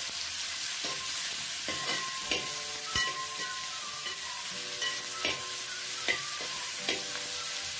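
Sliced onions sizzling as they are sautéed in hot coconut oil in a metal pot, while a metal spoon stirs them, scraping and clinking against the pot about once a second with a brief metallic ring.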